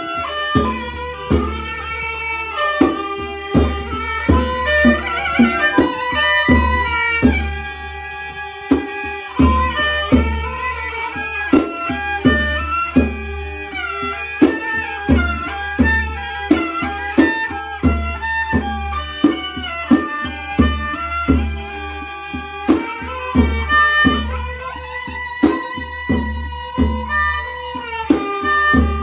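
Kantrum folk ensemble playing an instrumental passage: a bowed fiddle carries a sliding melody over steady hand-drum beats and a strong bass line.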